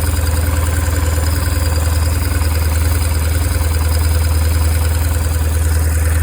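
2002 BMW R1150R's air/oil-cooled boxer twin engine idling steadily with a low, even pulsing hum, the running noise its owner is asking about as an engine sound issue.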